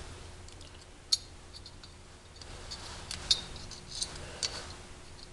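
Small, scattered metal clicks and ticks as the float hinge pin is worked into a small-engine carburetor body by hand, a few at a time.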